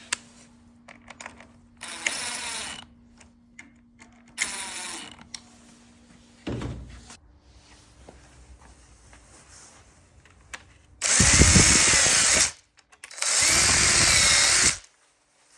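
Power tool run in short bursts: a few brief, quieter runs, then two loud runs of about a second and a half each near the end.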